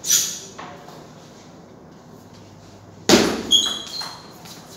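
Table tennis ball being struck by rackets and bouncing on the table: a sharp knock at the start and a fainter one half a second later, then a quick run of knocks with short high pings from about three seconds in.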